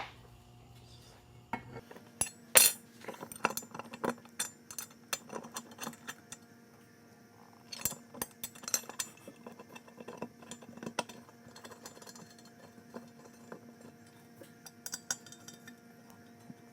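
Hardware clinking and knocking irregularly as centrifuge legs and their fittings are handled and put on, with the loudest knock about two and a half seconds in.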